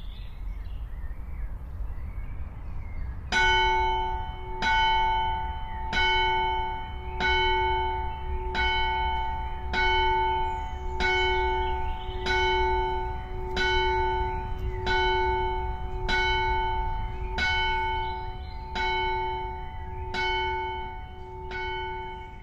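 A single church bell tolling at a steady pace, about one stroke every 1.3 seconds, each stroke ringing on into the next, starting a few seconds in. A low steady rumble lies underneath for most of it.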